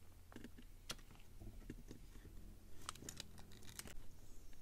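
Faint, scattered small clicks and light scraping of small plastic and metal parts being handled: a micro motor on its skid plate being pushed up into a 1/24-scale crawler chassis. There is a single click about a second in and a quick run of clicks about three seconds in.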